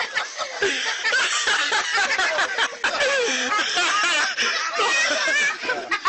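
Several people laughing at once, their voices overlapping.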